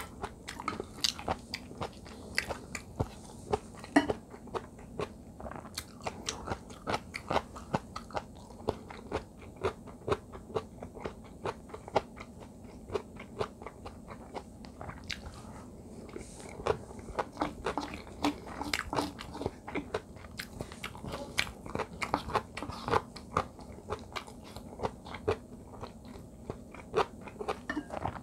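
Close-miked chewing of radish kimchi fried rice: a steady run of short crunches and wet mouth clicks, several a second, as the cubed radish kimchi is bitten and chewed.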